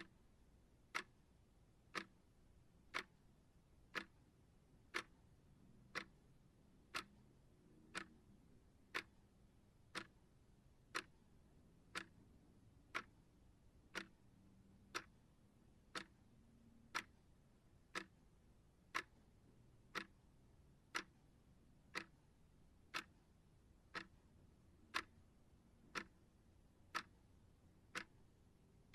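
Clock ticking steadily, one sharp, even tick each second.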